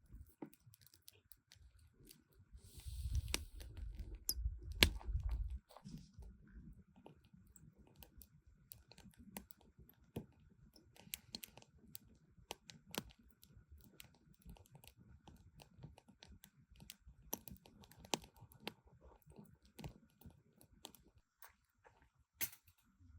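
Close-up chewing and crunching of food, with many small scattered clicks. A louder low rumble comes in about three seconds in and stops a few seconds later.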